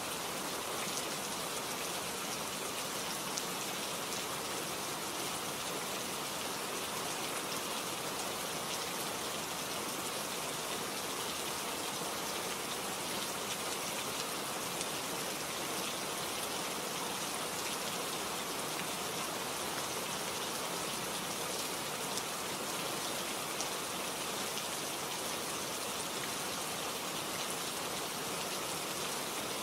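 Steady rainfall, an even hiss of many raindrops with faint, fine pattering, unchanging in strength throughout.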